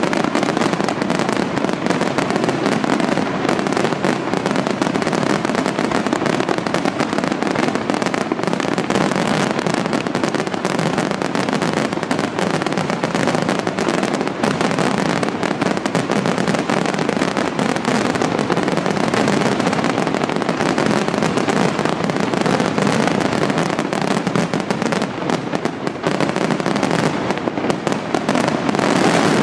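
Aerial fireworks bursting in a dense, unbroken barrage of rapid bangs, one on top of the next.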